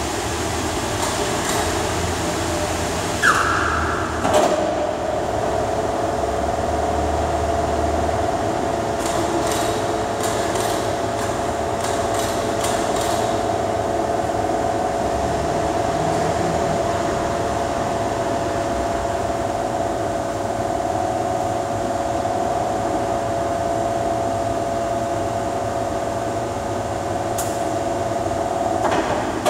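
Overhead crane running in a steel workshop hall: a steady electric motor whine sets in about four seconds in and holds until near the end, over a continuous machinery hum, with a few light metallic clicks.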